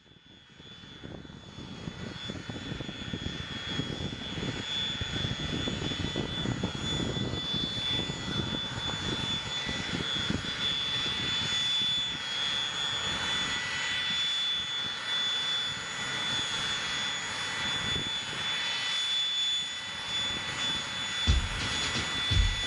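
Twin jet engines of a business jet running at idle, with a steady high whine over a rushing hum, fading in over the first few seconds. A few low thumps come near the end.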